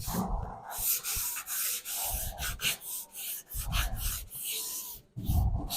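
Sandpaper being dragged dry over a car's body panel in repeated back-and-forth strokes, with a few heavier low bumps in between.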